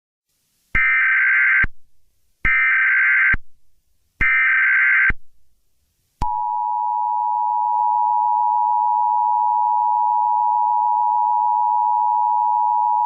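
Emergency Alert System tones: three short, identical bursts of SAME digital header data about a second each, then the steady two-tone EAS attention signal starting about six seconds in. Together they announce an incoming emergency alert message.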